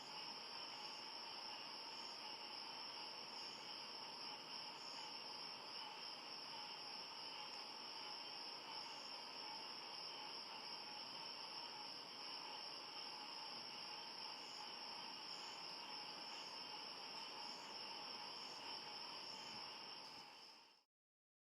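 Tropical forest night chorus of insects and frogs: several steady, high-pitched trills layered together, with a faint pulsing call repeating higher up. It fades out and stops shortly before the end.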